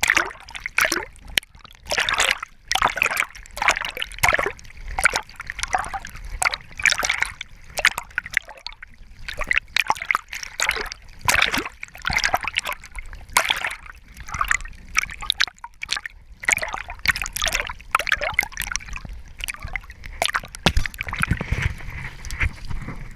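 Water splashing and sloshing in irregular surges as a Labrador retriever swims back through choppy harbor water with a retrieved scoter, heard very close. Low rumbling joins the splashing near the end.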